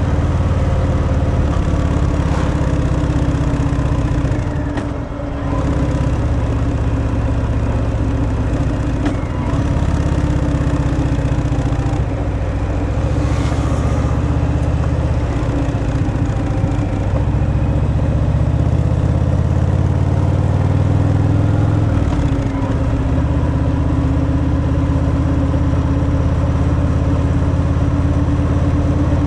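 Harley-Davidson Fat Boy's V-twin running through its stock exhaust while riding, a steady low engine note. The note dips briefly about five seconds in and again a little past twenty seconds, then picks back up.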